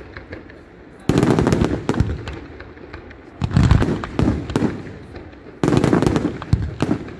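Fireworks battery firing: three loud clusters of rapid bangs and crackling shell bursts, starting about a second, three and a half and five and a half seconds in, with a lower rumble between them.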